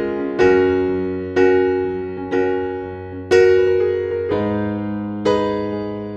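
Background piano music: chords struck about once a second, each fading away before the next.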